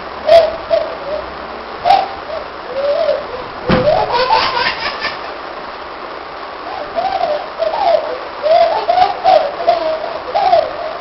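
Baby cooing and giggling in short sounds that rise and fall in pitch, with a rising squeal about four seconds in, a brief lull, then more coos towards the end.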